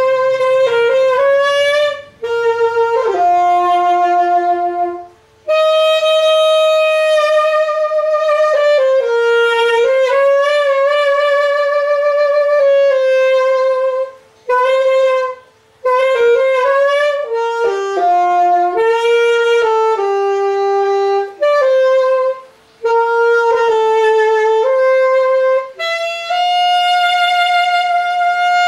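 Yamaha YAS-280 alto saxophone playing an unaccompanied melody in phrases broken by short breath pauses, with some long notes held with vibrato.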